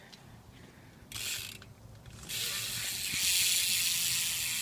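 BMX rear hub (Primo Remix) freewheeling as the wheel spins, its ratchet clicking so fast it blurs into a buzz; a short burst about a second in, then continuous clicking from about two seconds in that grows louder. Pretty loud.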